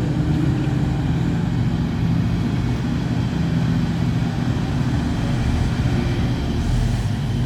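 Heavy diesel engine of large open-pit mining equipment running steadily with a low drone.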